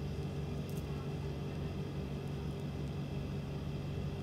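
Steady low background hum with a constant noise floor, and one faint click about two-thirds of a second in.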